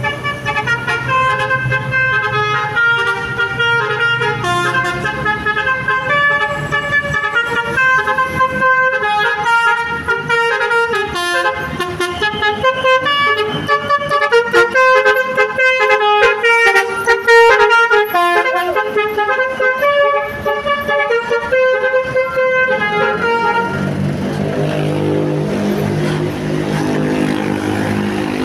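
Basuri V3 telolet multi-tone musical bus horn playing a fast melody of short notes that keep changing pitch, for over twenty seconds. Near the end it stops, leaving the bus engine running.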